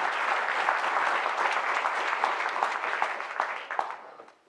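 Audience applause, a dense patter of many hands clapping that thins and dies away near the end.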